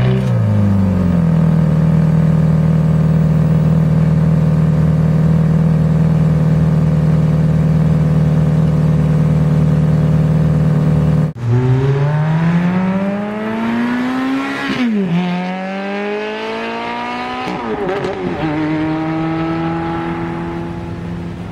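Ferrari F430's 4.3-litre V8 idling steadily, its pitch dropping briefly at first and then holding even. After a cut, it accelerates hard with a rising note through two quick upshifts of its F1 paddle-shift gearbox, about three and six seconds later, then settles to a steady note as it fades.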